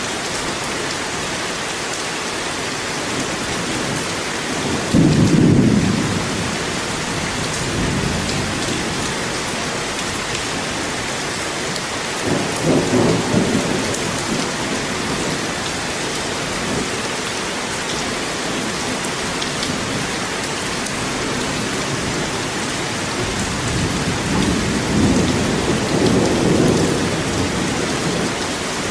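Steady rain with low rumbles of thunder: a short one about five seconds in, another around thirteen seconds, and a longer rolling one near the end.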